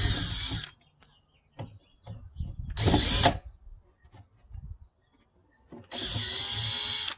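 Power drill running in three short bursts, the last one about a second long: driving screws out to free the old door lock and light.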